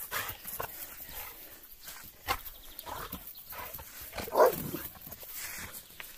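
Two American bulldogs playing rough over a rubber tyre toy: scattered short dog sounds and scuffling, with one loud, short outburst from a dog, falling in pitch, about four and a half seconds in.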